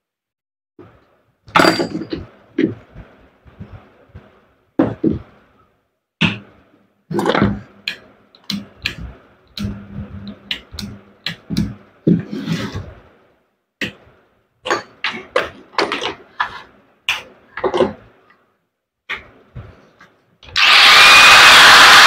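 Irregular clicks, knocks and clatter of angle grinder parts, the gear head, armature and plastic motor housing, being handled and fitted together on a workbench. Near the end a much louder steady rushing noise starts suddenly.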